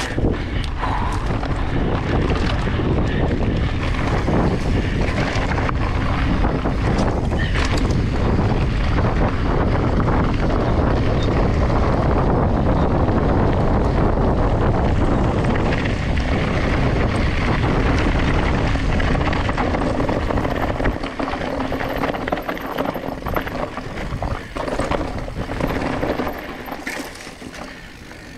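Wind buffeting the camera microphone and knobby tyres rolling over a dirt trail as a Giant Reign full-suspension mountain bike is ridden, with scattered rattles and knocks from the bike over bumps. The wind rumble eases after about twenty seconds and dies down further near the end as the bike slows.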